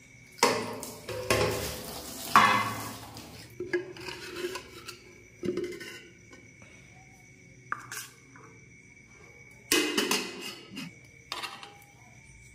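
Metal kitchenware clattering as food is dished out: a steel ladle scraping and knocking inside a metal rice pot, and plates and pots set down, in a run of irregular clinks and scrapes.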